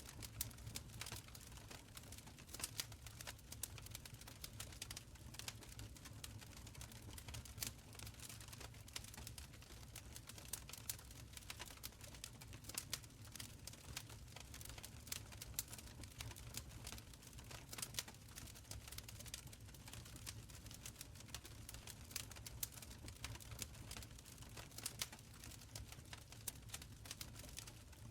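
Wood fire burning in a fireplace: frequent, irregular sharp crackles and pops over a low, soft rumble of the flames.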